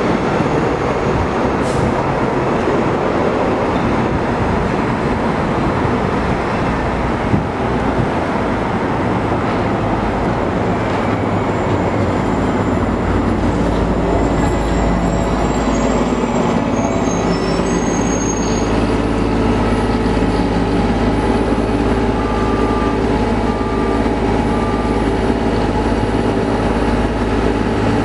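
2007 Orion VII diesel-electric hybrid city bus passing and pulling in to a stop over street traffic. From about halfway in, its steady low engine hum dominates, with a steady electric whine from the hybrid drive on top.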